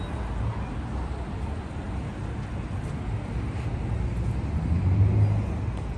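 Steady low rumble of city street traffic, cars driving past, swelling louder about five seconds in.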